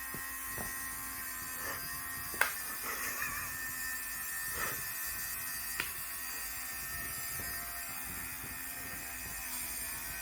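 Small motor of an electric lint remover (fabric shaver) running with a steady hum. There is a sharp tap about two and a half seconds in and a smaller one near six seconds.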